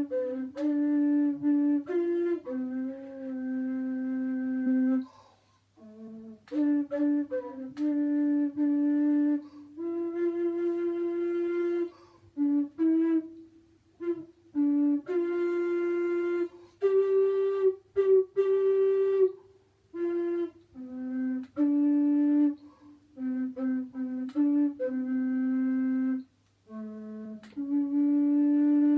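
A woodwind instrument playing a slow melody in short phrases, held notes in a mid-low register with brief pauses between phrases.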